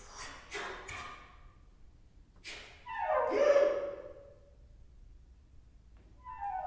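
Soprano saxophone played with extended techniques: a few short breathy rushes of air, then about three seconds in a loud pitched tone that slides down in pitch, and near the end another downward-sliding tone begins.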